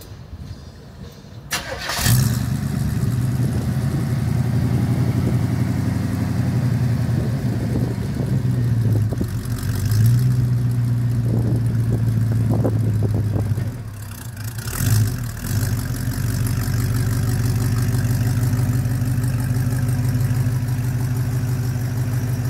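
A 1978 Avanti II's Chevrolet 350 V8 is cranked briefly and catches about two seconds in. It then settles into a steady idle through the exhaust, dipping briefly about two-thirds of the way through.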